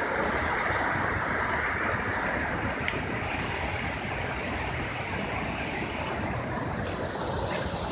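Steady rush of river water pouring out of a dam outlet and tumbling white over the riverbed below.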